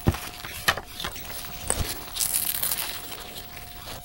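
Handling noise: rustling and a few sharp clicks as test leads and wires are handled with nitrile-gloved hands, with a faint steady tone underneath.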